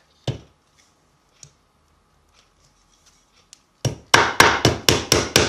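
Upholstery tack hammer striking a tack through stretched webbing into a hardwood stool frame. A single tap sets the tack about a third of a second in. From about four seconds in, a quick run of blows, roughly four a second, drives it home.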